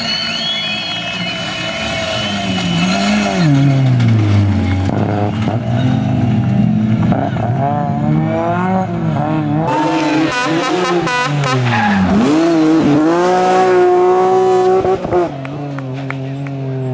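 BMW rally car's engine revving hard through the gears, its pitch climbing and dropping again and again as it accelerates and brakes through the stage, then settling to a steadier, lower note near the end.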